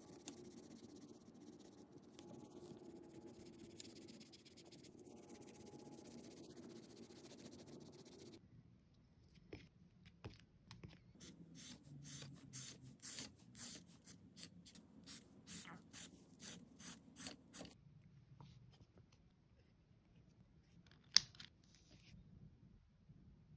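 Marker on grid notebook paper. First comes faint continuous rubbing as the border is coloured in. Then a run of short scratchy strokes, about two a second, as diagonal lines are hatched across the page, and a single sharp click near the end.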